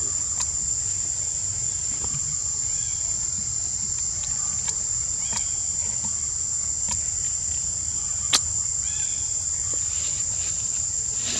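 A steady, high-pitched drone of forest insects with a low rumble underneath, a few faint chirps, and one sharp click about eight seconds in.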